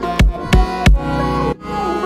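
Pop music with no vocals: deep kick-drum hits, three in quick succession in the first second, over a sustained synth melody. The beat cuts out briefly about one and a half seconds in.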